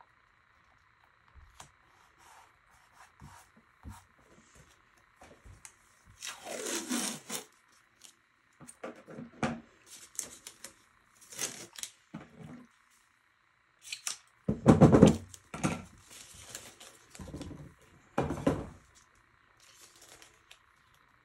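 Irregular scraping and tearing handling noises in a series of short bursts, loudest about fifteen seconds in, over a faint steady hum.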